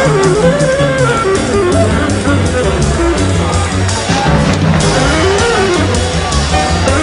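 Music: a band playing a melody line over a pulsing bass, with regular cymbal strokes keeping time.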